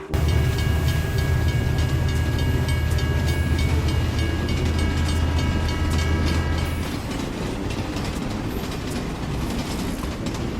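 Steady low mechanical rumble with a regular rattling clatter, like a vehicle rolling along; the deep part drops away about seven seconds in.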